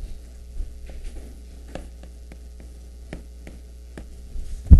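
Steady low electrical hum, with a scattered series of light taps and clicks and one louder thump near the end.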